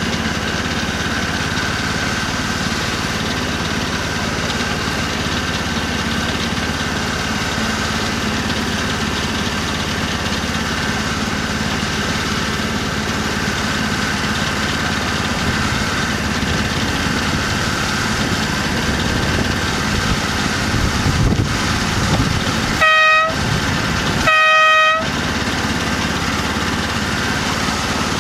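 Engine of a 7¼-inch-gauge BR Class 03 outline model diesel shunter running steadily as the locomotive travels along the track. Near the end the horn is sounded twice, a short toot and then a slightly longer one.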